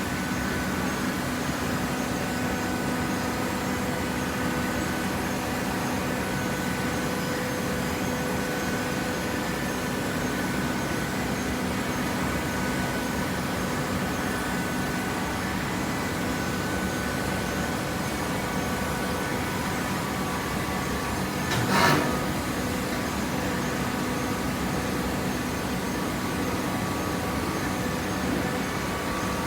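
Vertical downstroke hydraulic baler running, its pump motor humming steadily with a few held tones, and one short sharp noise about two-thirds of the way through.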